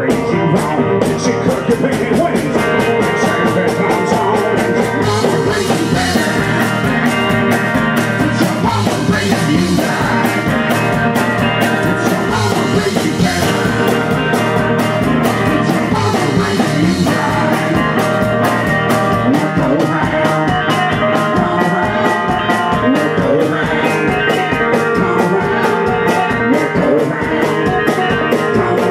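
Live country-blues rock band playing: guitar and drums at a fast, steady beat, with sleigh bells shaken along.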